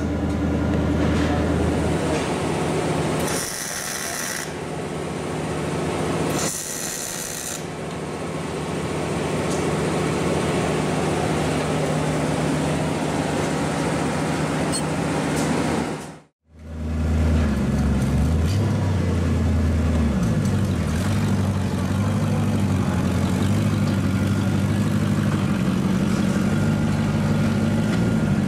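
MIG welding: the arc crackles steadily over a low hum, with the sound changing briefly twice. After a sudden cut, a shop vehicle's engine runs, its pitch shifting up and down for a few seconds before it settles into a steady run.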